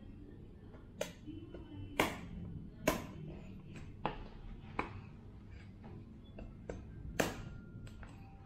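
Kitchen knife striking and prying into a cloth-wrapped durian's husk to split it open: about six sharp knocks at uneven intervals, one of the loudest near the end. Faint background music underneath.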